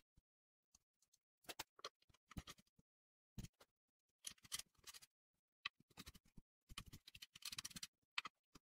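Faint metal clicks and scrapes of bolts, nuts and washers being handled and fitted onto the steel carriage of a homemade angle-grinder stand, coming in irregular short clusters.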